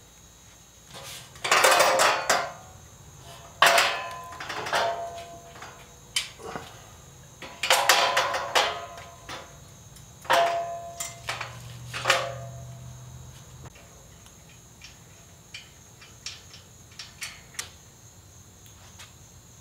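Slatted steel plasma-cutting table top clanking and rattling against the metal work stand as it is fitted onto the stand's brackets. The clatter comes in several bursts, each with a short metallic ring. Lighter single ticks and clicks follow in the last few seconds.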